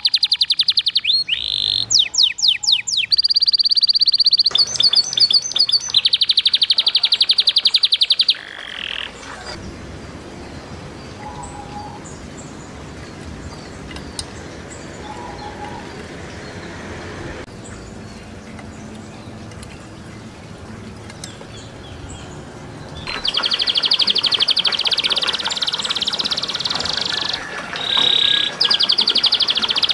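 Domestic canary singing loud, fast rolled trills. About eight seconds in the song breaks off, leaving a steady trickle of water with a few faint chirps, and the canary's song comes back in near the end.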